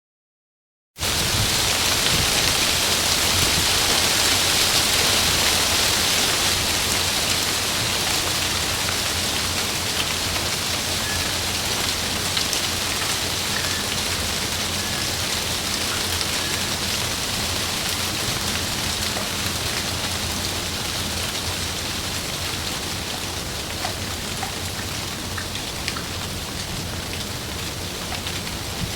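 Heavy rain falling on a tree's leaves, with wind: a loud, steady patter that starts about a second in, with scattered drop ticks.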